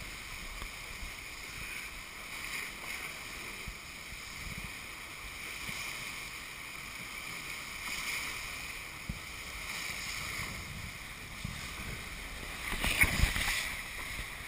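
Water rushing and hissing past the hulls of a racing multihull sailboat under way, a steady rush with wind on the microphone. About thirteen seconds in it swells into a louder burst of spray and wind for about a second.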